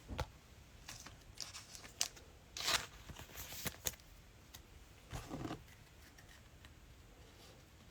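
Trading cards and pack wrappers being handled: a scattering of faint, short swishes and clicks, with a longer rustle a little past five seconds in.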